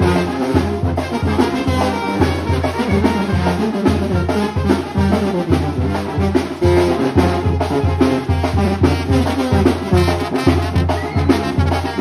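Live banda (Mexican brass band) playing: trombone and trumpet carry the melody over a bass line of low brass notes pulsing in a steady beat, with hand drums.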